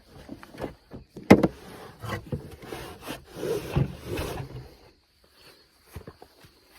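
Irregular rubbing and knocking of something being handled, with one sharp knock a little over a second in and a run of scraping sounds that dies away about two-thirds of the way through, leaving only a few small clicks.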